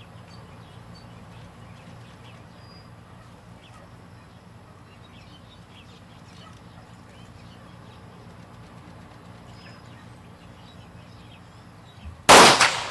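A single sniper-rifle shot near the end, loud and sudden with a short ringing decay, after a long stretch of quiet outdoor background with faint chirps.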